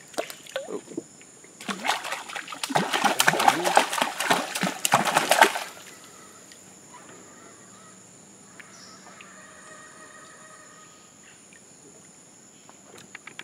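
Water splashing hard and rapidly for about four seconds, then stopping. A steady, faint high whine runs underneath.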